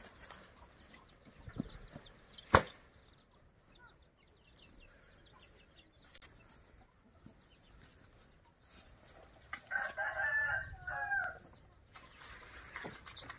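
A rooster crowing in several broken phrases about ten seconds in. Earlier, about two and a half seconds in, a single sharp knock, the loudest sound.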